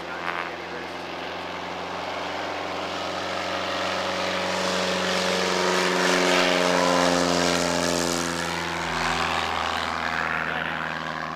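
Single-engine propeller plane on its takeoff run, its engine growing louder as it comes past and then dropping in pitch as it goes away, loudest about six to seven seconds in.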